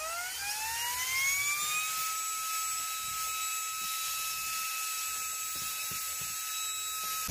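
Handheld cordless vacuum cleaner starting up, its motor whine rising in pitch over about two seconds and then running steadily at a high pitch as it sucks up metal drill filings.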